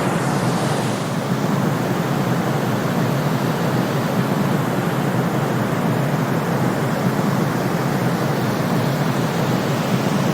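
Steady, unchanging synthetic white-noise sleep track, a smooth hiss with more weight in the low and middle range than the highs, playing while the timer counts down.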